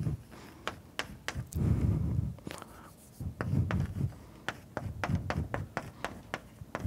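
Chalk tapping and scratching on a blackboard as a formula is written: a string of quick sharp clicks mixed with duller low knocks from the board.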